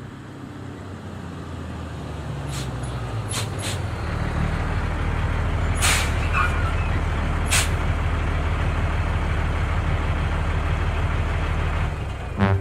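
Truck engine rumbling, growing louder as the truck pulls up and then running steadily. Several short hisses of the air brakes sound over it in the first half.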